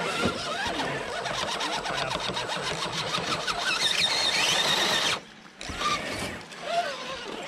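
Electric motor and geared drivetrain of a radio-controlled scale crawler, whining with fast clicking as it works over rock. It cuts out briefly about five seconds in, then resumes more quietly.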